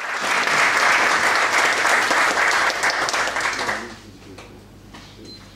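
Audience applauding steadily, stopping fairly abruptly about four seconds in, followed by a few faint scattered taps.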